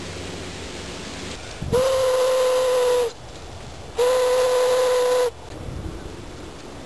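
Handmade ceramic ocarina blown in two long held notes on the same pitch, each a little over a second, about a second apart.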